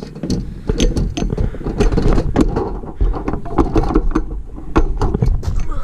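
Handling noise from a hand-held camera's microphone: fabric rustling, with knocks and bumps against a hoodie sleeve as the camera is moved about, over a heavy low rumble. It stops abruptly near the end.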